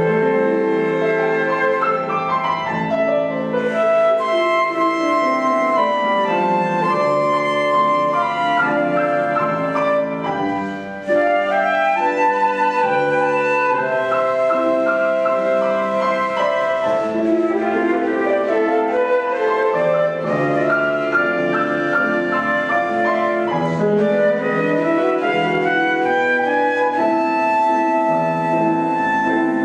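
Instrumental music played by a duo: sustained melody notes over chords, with fast runs sweeping up and down the range several times.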